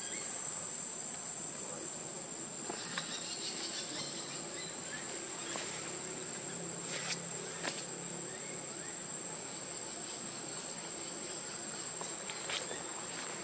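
Steady high-pitched insect drone, one unbroken tone, with a few faint clicks scattered through.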